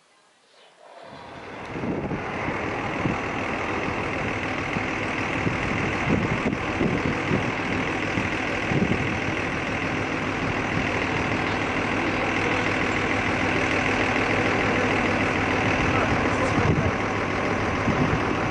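A large vehicle's engine running steadily. It comes in about a second in and rises to full loudness by about two seconds.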